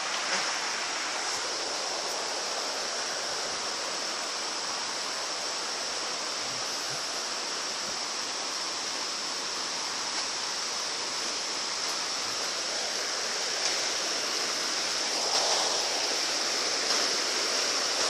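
River water rushing over rocks and boulders in shallow rapids: a steady hiss of running water, a little louder near the end.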